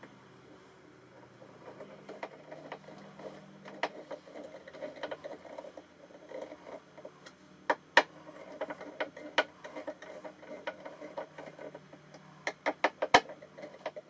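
Small metal latch hardware being fitted to a wooden tool chest: irregular clicks and light taps, with a sharper tap about eight seconds in and a quick run of taps near the end.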